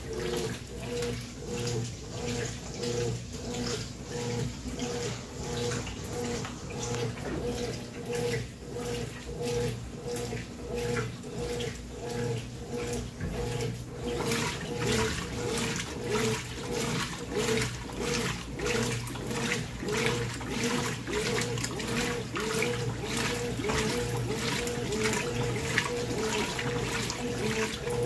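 Top-load washing machines agitating laundry in water: rhythmic sloshing about once a second over the steady hum of the agitator motor. About halfway through it changes to a brighter, busier churning, from the Brastemp 14 kg top-loader washing coloured clothes on medium water level.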